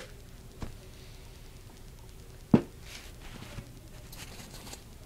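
Close handling noises: a few light knocks, one sharp click about two and a half seconds in, and brief scratchy rubbing.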